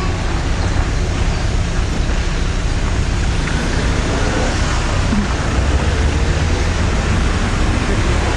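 Car driving slowly, heard from inside the cabin: a steady engine and road-noise hum with a low drone.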